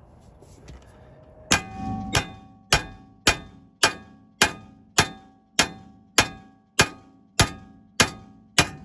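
A 3-pound hammer striking steel suspension parts, thirteen hard blows at a steady pace of a little under two a second, each with a short metallic ring. The blows are meant to pop a stuck joint on the steering knuckle loose.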